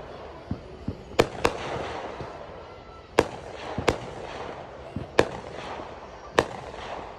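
Aerial fireworks going off: sharp bangs every second or so, some in quick pairs, with softer low thumps between them and a crackling hiss trailing each bang.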